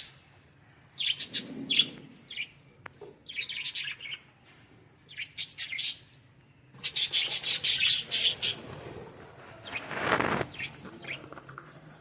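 Pet budgerigars (Australian parrots) chirping in quick high bursts, several flurries with short pauses between them, the longest near the middle. About ten seconds in there is a brief rustling noise.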